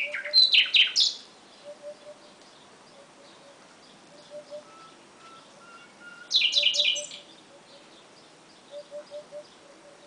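Nightingale singing: a loud phrase of rapid repeated high notes at the start and another about six seconds in, with quieter scattered chirps between. Faint low repeated calls of another bird run underneath.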